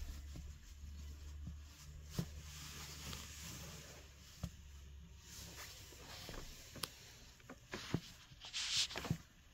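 Salomon XA Pro 3D GTX trail shoes shifting on a cork floor: a few separate light knocks of the soles and a brief scuffing swish near the end, over a low hum.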